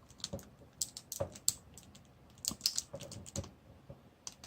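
Screwdriver tip clicking and tapping against the hard plastic of an action figure while prying at an arm peg: irregular light clicks in two clusters, about a second in and again about two and a half seconds in.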